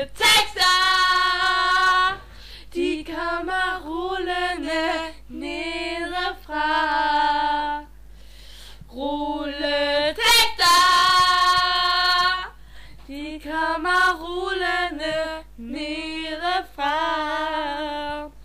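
Female voices singing a song in Danish without accompaniment, in phrases of held notes with short breaks between them.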